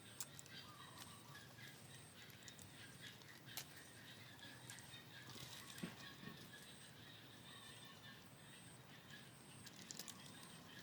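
Faint outdoor ambience: a high chirp repeating about once a second, distant bird calls, and a few soft clicks.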